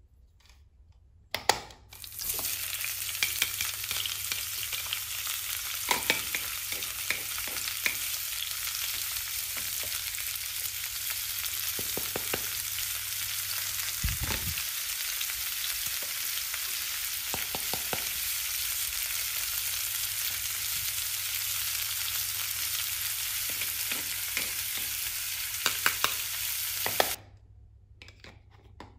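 Simulated frying sizzle from a toy kitchen stove: a steady hiss that starts after a click about a second and a half in and cuts off suddenly near the end. Light clicks and taps of plastic toy food and utensils sound over it.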